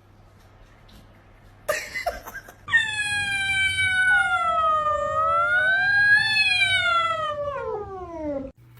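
A cat's single long, drawn-out yowl lasting about six seconds, wavering in pitch and sliding down at the end, after a brief rustle.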